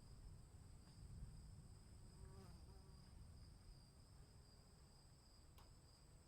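Faint storm ambience: a steady, high, two-tone insect trill over a low rumble. A brief faint call sounds about two and a half seconds in, and a single faint click comes near the end.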